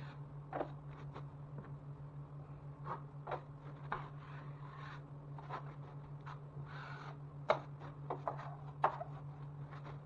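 Intermittent light scraping, rubbing and clicking of hand tools over a steady low hum, with a few sharper clicks later on.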